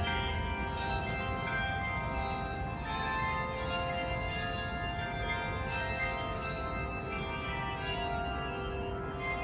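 Town hall bells ringing, many overlapping tones hanging on and blending, with fresh strikes about three seconds in and again near the end.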